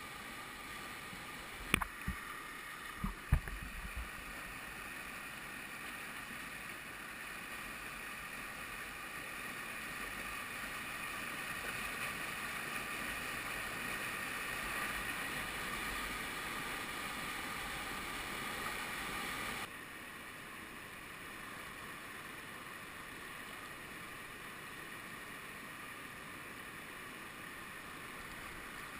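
Whitewater rapids rushing steadily around a kayak, with a few sharp knocks about two to three seconds in; the rushing drops suddenly in level about twenty seconds in.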